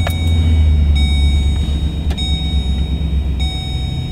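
Pickup truck engine idling just after being started, a steady low rumble heard from inside the cab. Over it an electronic warning chime from the cab rings about once every second, four times.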